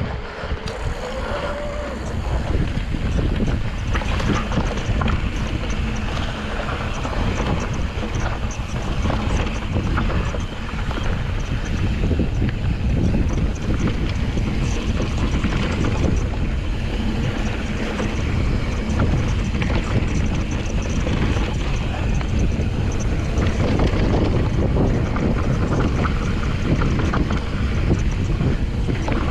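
Wind buffeting the microphone over the rattle and clatter of a full-suspension mountain bike riding over rocks, with many small knocks and clicks from tyres and frame.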